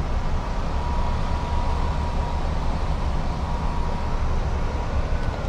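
Steady low outdoor rumble, with a faint thin tone held for about four and a half seconds and a faint falling tone near the end.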